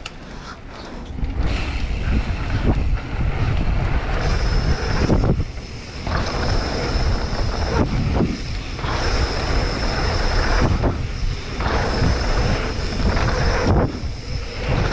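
Wind buffeting the microphone and mountain-bike tyres rumbling over packed dirt on a jump line. The noise drops away briefly about four times as the bike is in the air over the jumps.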